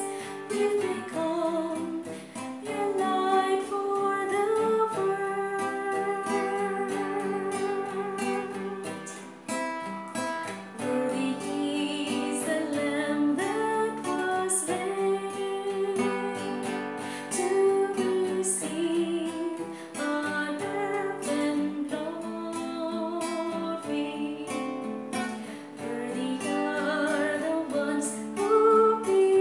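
A woman singing a hymn solo, accompanying herself on acoustic guitar.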